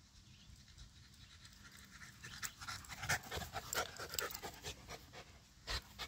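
Small Aussie-mix dog panting hard and fast close to the microphone, out of breath from sprinting after a fetch ball; the panting starts about two seconds in. Two louder knocks sound near the end.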